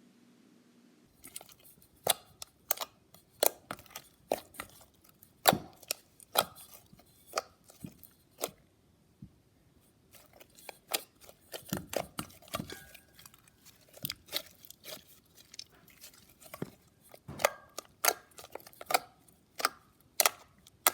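Homemade white glue slime being squished and pulled by hand, giving irregular sticky clicks and pops several times a second from about a second in.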